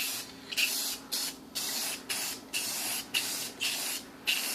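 Aerosol spray can of clear coat hissing in short bursts, about two a second, as the clear is sprayed over fresh paint in quick passes.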